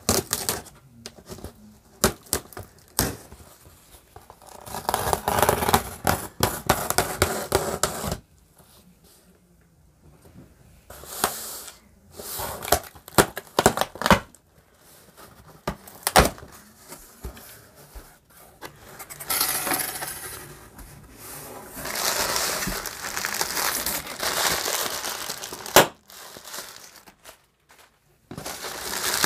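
Cardboard shipping box being opened by hand: packing tape slit and torn, and the cardboard flaps pulled open and rubbed, with many sharp clicks and knocks. There are longer scraping, rustling stretches about five seconds in and again past twenty seconds.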